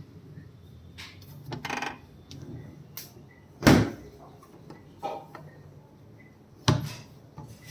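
Irregular knocks and thumps, a handful of separate hits with the loudest about three and a half seconds in, over a faint low steady hum.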